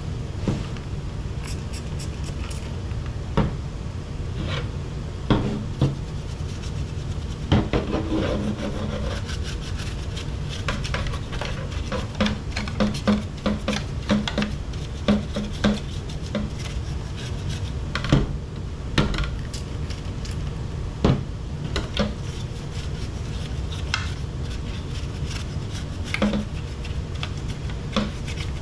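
Scrubbing and scraping on the plastic cabin filter housing as sticky gunk is cleaned out of it, with irregular clicks and knocks of the plastic being handled, over a steady low hum.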